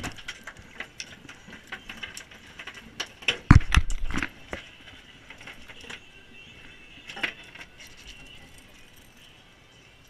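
Fishing tackle being handled as a chub mackerel is landed: a run of light clicks and rattles, with a burst of heavy thumps about three and a half seconds in.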